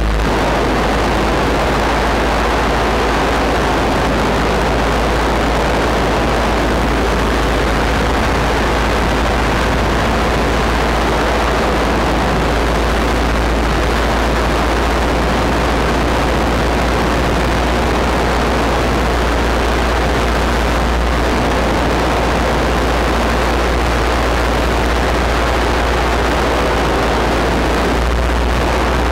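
Paramotor engine and propeller running steadily under a paraglider wing in flight, with loud wind rush on the microphone.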